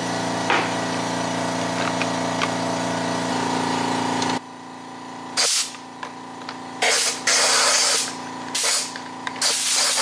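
Compressed-air blow gun firing several short blasts of hissing air at a Dyson cordless vacuum's cyclone body, blowing out packed dust. Before that, a steady mechanical hum cuts off suddenly about four seconds in.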